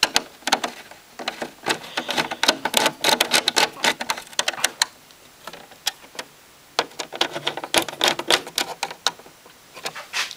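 Irregular quick clicks and taps of hard plastic being handled, as the radio's perforated plastic back cover and its screws are worked into place, with a short pause about halfway.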